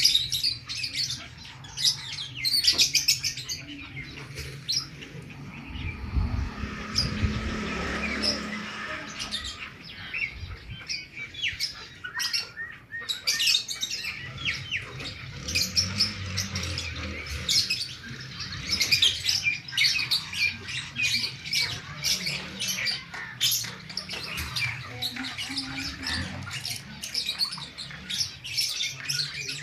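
Many small birds chirping continuously, a dense chatter of rapid short high-pitched chirps. A low rumble joins in for a few seconds about six seconds in.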